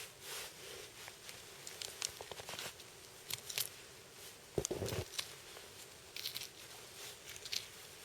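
Faint scattered clicks and light rustling of knives being handled. A short falling tone comes about halfway through.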